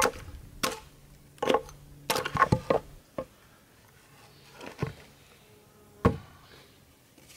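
A hatchet striking into the split of a green tan oak log: a run of sharp chopping knocks, closely bunched about two seconds in, as the log is split. A softer rustle follows as the halves tear apart, then a single thump about six seconds in.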